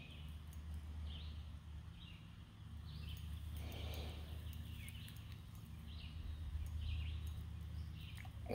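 A bird calling over and over: short, high calls, each falling at the end, repeated about once a second, over a low steady hum.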